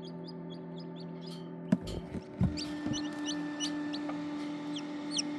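Newly hatched Serama chicks peeping: short high calls that fall in pitch, faint and even at first, then more frequent toward the end, over a steady hum. A sharp knock about two seconds in and a low thud shortly after.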